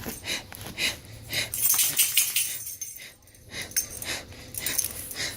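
A person breathing fast and heavily in deliberate panic-attack-style breaths, short in-and-out strokes about three a second, with a brief pause about three seconds in.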